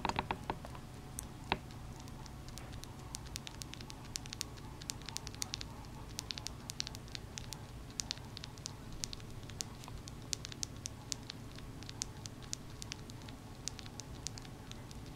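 Baby Syrian hamster pup eating, its mouth making fine, irregular clicks and smacks several times a second. A short rustle is heard right at the start.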